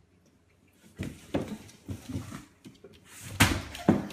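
After a second of near silence, scuffling and bumping, then two loud thumps about half a second apart near the end, as a dog and a cat jostle against a cardboard carton.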